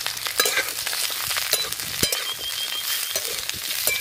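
Potato, sweet potato and raw banana pieces sizzling in hot oil in a metal kadai, with a flat metal spatula scraping and knocking against the pan as they are stir-fried.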